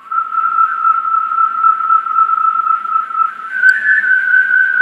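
Flexible plastic wash-basin drain pipe whirled overhead, whistling a steady pure tone. About three and a half seconds in, the tone jumps to a higher note as the pipe is spun with more intensity.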